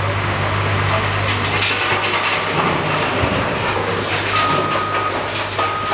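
Caterpillar 988K wheel loader running under load as it lifts and tips a bucket of quarry rock into the body of a Cat 775G dump truck, with rock rattling into the steel bed. From about four seconds in a reversing alarm beeps, each beep long and at one pitch.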